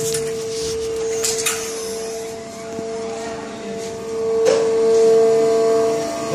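A steady machine hum at one pitch, with a few scattered clicks and knocks over it.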